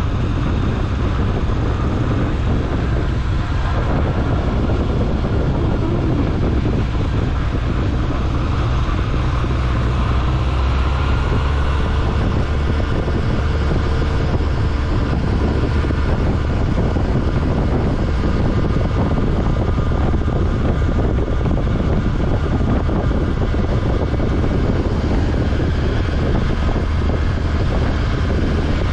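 Honda Nighthawk 750's air-cooled inline-four engine running steadily under way, with wind rushing over the microphone.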